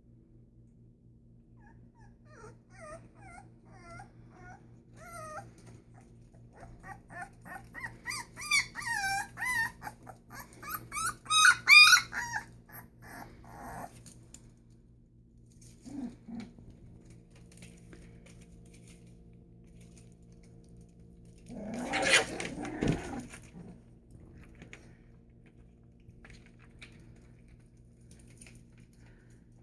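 Presa Canario puppies whimpering and squealing in many short, high, wavering cries that build to a loud burst of yelping midway. A rougher, louder outburst comes about two-thirds of the way through.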